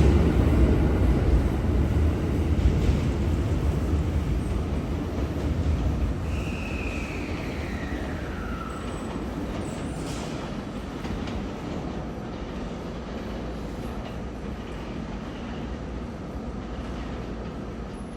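A train running on the rails, its low rumble fading steadily as it moves away. About six seconds in, a single high squeal slides downward in pitch.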